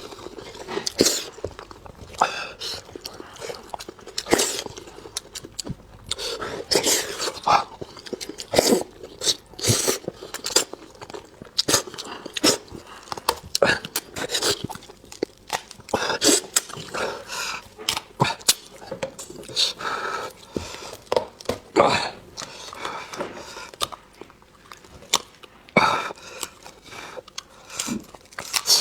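Close-up chewing and biting of food, with irregular crunches and wet mouth clicks.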